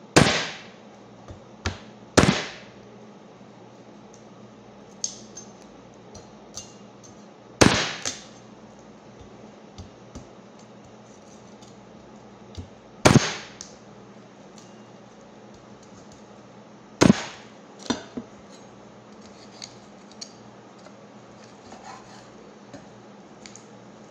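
Meat cleaver chopping raw sheep meat on a wooden cutting board: five hard chops spaced a few seconds apart, each ringing briefly, with lighter knocks in between.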